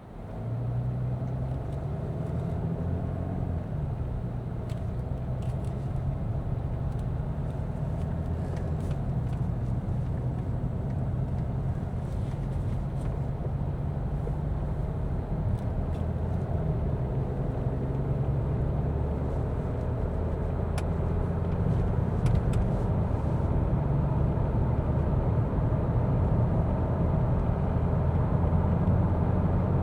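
Mercedes-Benz S 450d's 3.0-litre inline-six turbo diesel running under way, with tyre and road noise. The sound rises sharply in the first second and grows slowly louder toward the end.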